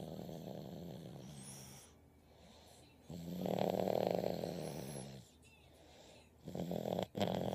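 Heavy snoring in deep sleep: three long snores about three seconds apart, the middle one the loudest.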